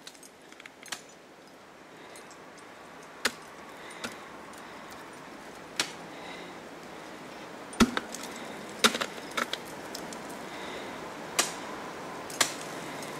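Ice axe picks and crampon front points striking hard waterfall ice as a climber moves up. About ten sharp, irregular strikes over a low steady hiss, the loudest just past halfway.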